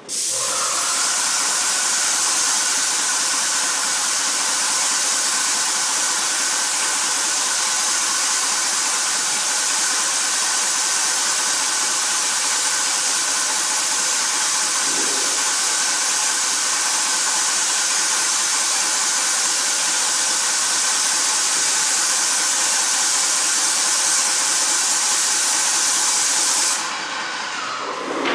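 Paint sprayer running: a loud steady hiss over a steady whine. Near the end the hiss stops suddenly and the whine dies away.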